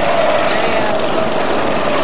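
Small go-kart engines running as karts drive around the track, a steady engine note that drifts slightly in pitch.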